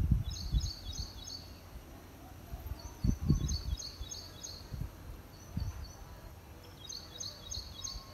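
A small songbird repeating short phrases of quick high chirps, four times at a few seconds' spacing. Low rumbling gusts hit the microphone now and then, loudest about a second into the phrases.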